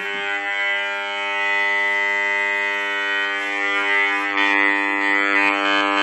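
RF detector's speaker giving a steady, even buzz with many overtones: the audible rendering of the pulsed DECT transmission from a digital baby monitor's receiver unit, which transmits continuously. Near the end it cuts off abruptly as the detector is switched off.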